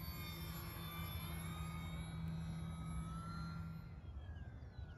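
Electric motor and propeller of a small foam board RC airplane whining in flight, the pitch sliding as it passes. The whine drops away about four seconds in.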